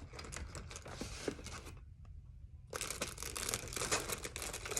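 Rustling and crinkling of a typewriter-ribbon box and its plastic packaging being handled and opened, with scattered small clicks. A brief lull comes about two seconds in, then denser crinkling.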